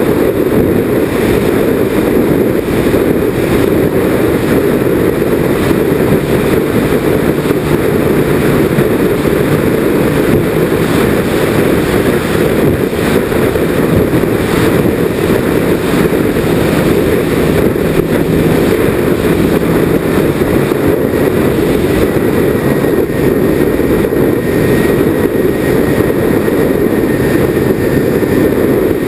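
Steady, loud rush of a twin-engine RC airplane in flight, heard from a camera mounted on the plane: the motors and propellers running together with airflow over the airframe. A faint high whine runs through the second half.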